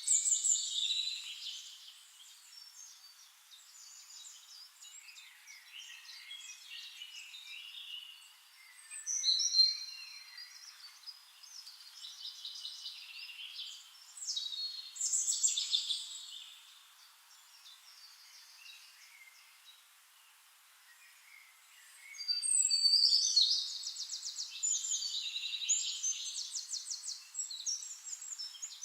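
Songbirds singing in separate high-pitched phrases with pauses between them, ending in a longer stretch of rapid trills.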